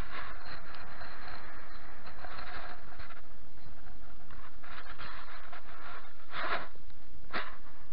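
Close rustling and scraping of an ice angler's clothing and gear as his hands handle tackle, with two short sharp knocks near the end, over a steady low rumble.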